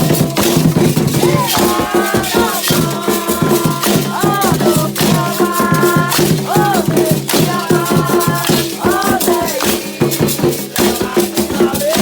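Candomblé music for Xangô: voices singing chant lines that bend in pitch, over a steady, fast rhythm of shaken rattles and percussion.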